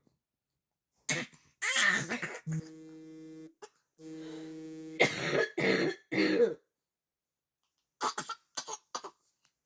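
A person coughing in short hard fits: single coughs about one and two seconds in, a run of three coughs around the middle, and a few fainter short coughs near the end. Between the coughs a steady buzzing tone sounds twice, about a second each time.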